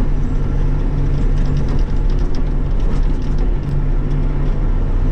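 Bobcat E42 mini excavator's diesel engine running steadily at working throttle (set at about 1880 rpm), heard from inside the cab as an even low drone.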